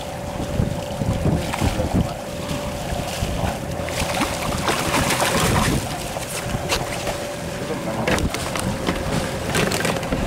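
Wind buffeting the microphone and water rushing along a boat's hull while a tuna is hauled alongside, over a steady hum. The rush of water grows louder a few seconds in.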